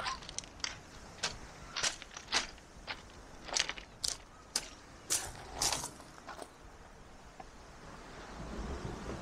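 Walking footsteps crunching on loose stones, about two steps a second, stopping about two-thirds of the way through. A low rushing noise swells near the end.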